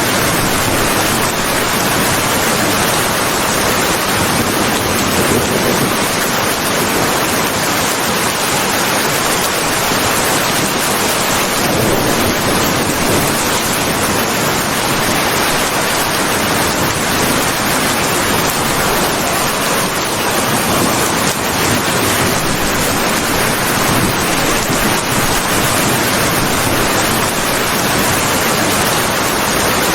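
Steady rain: a dense, even hiss that holds level throughout, with no thunder or separate drops standing out.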